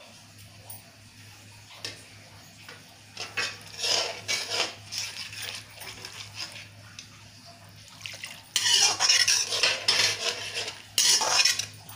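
Steel spoon stirring and scraping a thick yogurt gravy around a metal kadai, in irregular strokes that grow louder and busier over the last few seconds.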